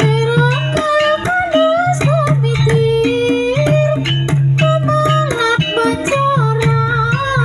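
Ebeg accompaniment music: a sliding, ornamented melody line over frequent sharp percussion strokes and a low held bass note that drops out and returns.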